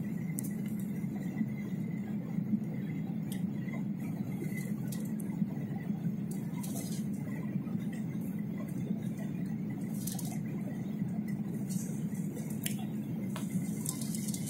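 Steady cabin noise of a jet airliner on approach: an even low rumble of engines and airflow with a faint steady high whine above it. Scattered light clicks and rattles come through now and then.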